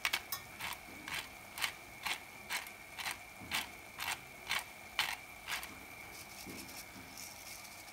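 Hand-turned pepper grinder grinding black pepper, its mechanism making sharp ratcheting clicks about twice a second, which stop about five and a half seconds in.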